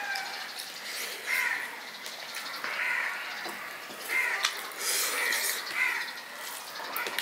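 A crow cawing about six times at uneven intervals, with a few light clicks of a hand mixing rice on a steel plate.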